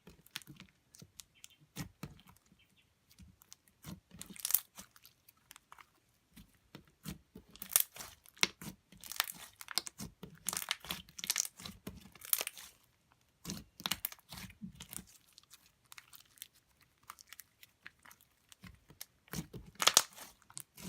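Hands squeezing and stretching a thick, glossy white-glue slime packed with jumbo foam beads. The beads crunch and crackle in irregular clusters, with short quiet pauses between handfuls.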